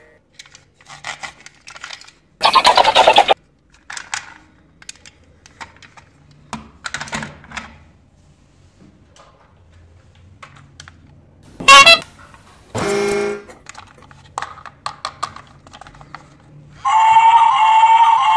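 Plastic toy trains clicking and clacking as they are handled, with a few short louder bursts. Near the end a battery-operated toy train robot starts a steady, high electronic tone.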